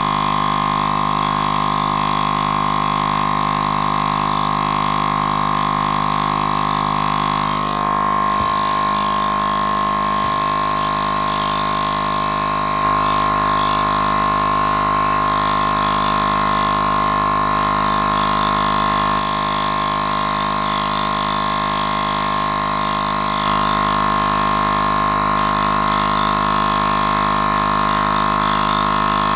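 Portable electric air compressor running steadily, a constant droning hum, as it pumps the launcher's air tank up to about 130 psi.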